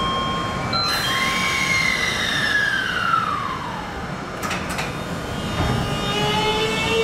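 Kintetsu 23000 series Ise-Shima Liner's Mitsubishi GTO VVVF inverter whining as the train runs. The tone slides steadily down in pitch for a couple of seconds. Two sharp clicks follow, then a new, lower tone comes in and rises slowly near the end.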